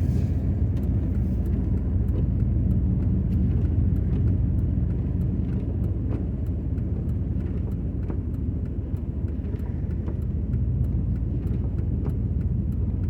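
Car cabin noise while driving: a steady low rumble of engine and tyres on a snowy road, heard from inside the vehicle.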